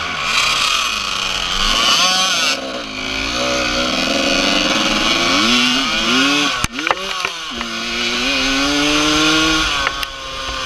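Dirt bike engine being ridden along a trail, its pitch rising under throttle and dropping back again and again, then holding steadier near the end. A sharp knock comes about two-thirds of the way through. Wind hiss on the microphone throughout.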